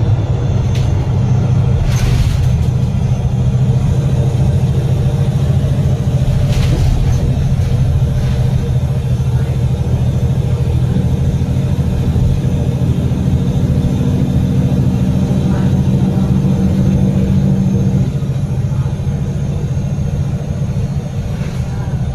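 Double-decker bus's rear-mounted Cummins L9 inline-six diesel engine running steadily under load at road speed, heard from the rear seats as a continuous low drone with road noise and a few brief rattles. The engine note eases off about 18 seconds in.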